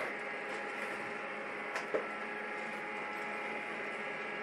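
Gene Cafe CBR-101 home coffee roaster running mid-roast, a steady whirring hum from its fan and heater with the green beans tumbling in the rotating chamber, just before first crack. Two faint clicks a little under two seconds in.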